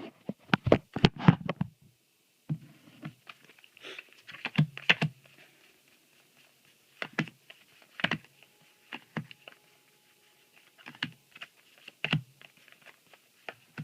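Paper trading cards being handled and set down on a table: irregular sharp taps and clicks, a quick run of them at first, then small clusters with pauses between.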